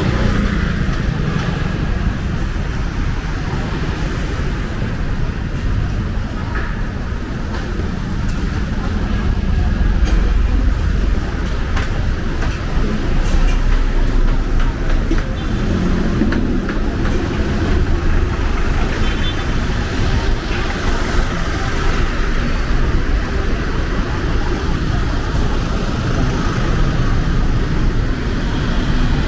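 Busy city-street ambience: car engines running and traffic moving slowly along a narrow street, with people's voices in the background. The low rumble swells for a few seconds about a third of the way in, as vehicles pass close.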